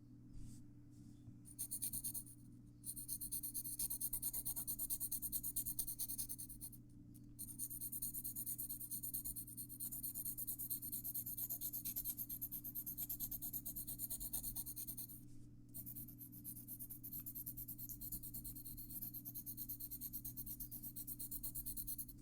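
Graphite pencil rubbing on paper in quick, repeated strokes, stopping briefly three times. A steady low hum runs underneath.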